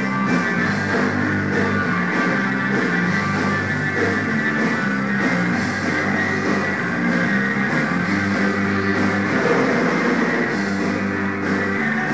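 Rock band playing live: electric guitar, bass guitar and drum kit in a steady instrumental passage.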